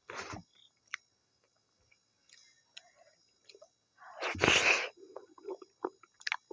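Close-up mouth sounds of someone eating maize dhido with nettle curry: soft, wet chewing clicks, a short breathy burst at the start and a louder one a little after four seconds in.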